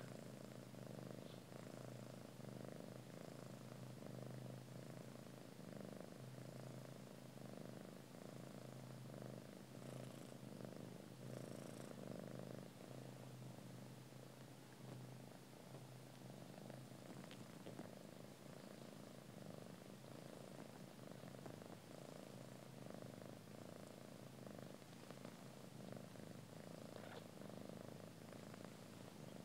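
Mother cat purring steadily and quietly while her newborn kittens nurse.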